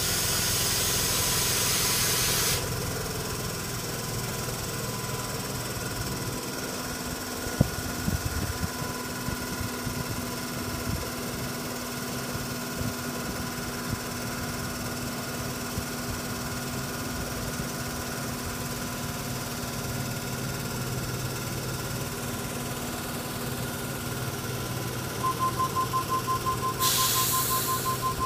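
A Tangara electric train's air compressor running steadily with a hum. A loud hiss of air stops about two and a half seconds in. Near the end come rapid electronic beeping and another short hiss of air.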